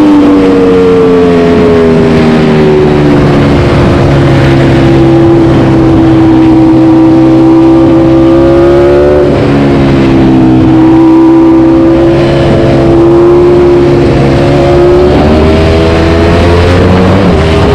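Ducati Panigale V4's V4 engine through an Akrapovic GP exhaust, ridden at part throttle in second gear. The revs ease down, then climb briefly and drop sharply about nine seconds in, hold steady, and rise again near the end.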